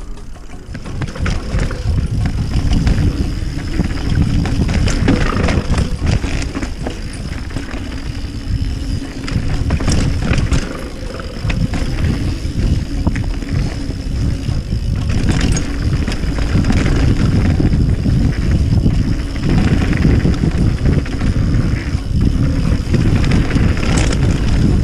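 Mountain bike ridden fast down a dirt trail: a heavy rumble of wind on the camera microphone and tyres on dirt, with frequent clattering rattles as the bike hits bumps. It builds up over the first couple of seconds.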